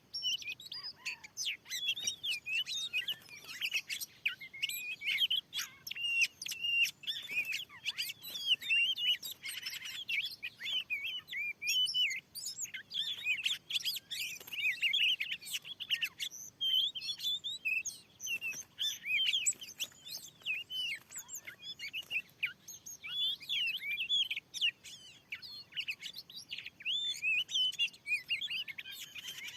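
Oriental magpie-robin (kacer) singing a continuous, rapid and varied run of chirps and whistles.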